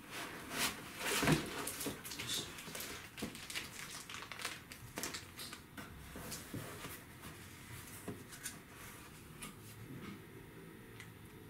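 Cardboard box and clear plastic wrapping rustling and crinkling as a laptop is lifted out of its shipping carton, with light knocks against the box. The rustles come in irregular bursts, busiest in the first couple of seconds and quieter near the end.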